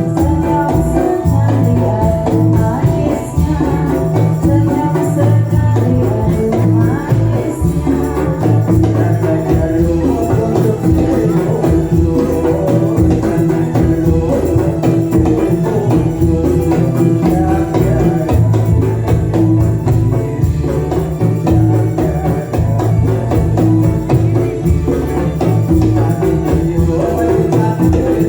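Dolalak dance music played live: frame drums and jingling percussion in a steady, driving rhythm, with a held melodic tone over it.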